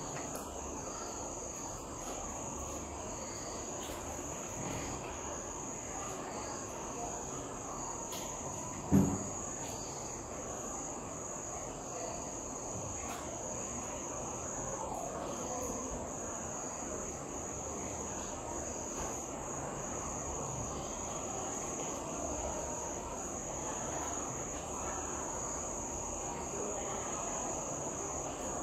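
Insects chirring steadily in a high, even trill, with a faint low hiss of room noise beneath. A short voice sound breaks in briefly about nine seconds in.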